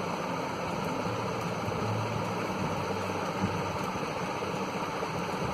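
Steady background hiss with a faint low hum and no distinct events.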